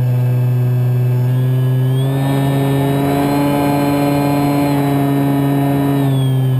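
Brushless electric motor (Scorpion 4020-10) spinning an 11x10 APC propeller on a Kyosho Spitfire 50 EP RC plane, heard from a camera inside its cockpit: a steady propeller drone with motor whine. It speeds up, rising in pitch, about two seconds in, and slows again near the end.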